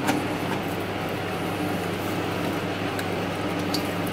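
A steady low hum runs throughout, with a few faint clicks and rustles as a 3D printer's metal frame is lifted out of its foam packing.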